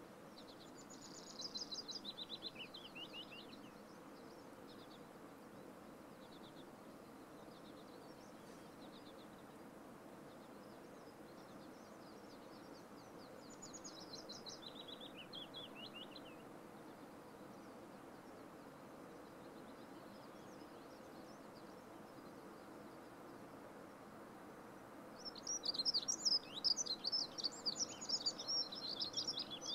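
A small songbird singing three fast trilled phrases that step down in pitch: one about a second in, a quieter one midway, and the loudest near the end. Beneath them is a steady faint hiss.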